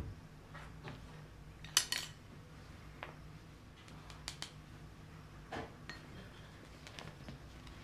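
Scattered light knocks and clinks as a kitten bats and scrambles against a metal kettlebell and its chrome handle while chasing a feather wand toy. The loudest is a quick double clink about two seconds in.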